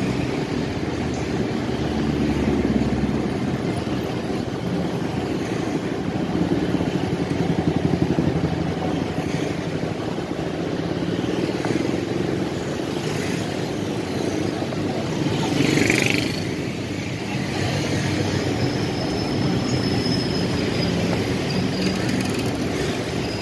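Motor vehicle engine running steadily while travelling, with road noise. There is a brief louder rush about sixteen seconds in.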